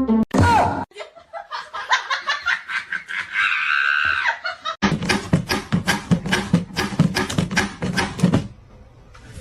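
A person laughing in quick repeated bursts.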